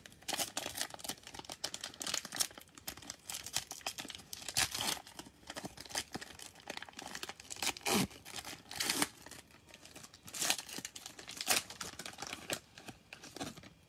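Cellophane wrapper of a cello pack of basketball cards being torn and peeled open by hand: a run of irregular crinkling and tearing crackles.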